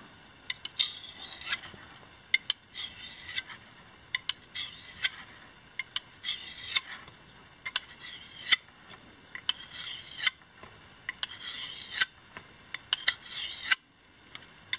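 Knife blade stroked across a wetted Fjällkniven DC4 pocket whetstone: about eight rasping sharpening strokes, roughly one every second and a half, with light clicks between them. It is a quick field touch-up of an edge dulled by use.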